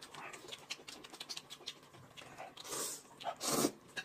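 Noodles being eaten: quiet chewing and mouth-smacking clicks, then two short slurps in the last second and a half.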